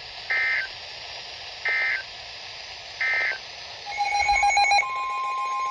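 Three short bursts of EAS/SAME digital data tones, evenly spaced over a background hiss: the end-of-message code that closes the flash flood warning. About four seconds in, another alert's tones start, a rapid pulsing tone and then a steady tone.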